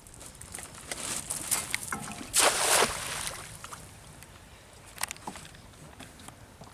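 Water splashing: smaller splashes and drips, with one loud splash about two and a half seconds in and a lighter one near five seconds.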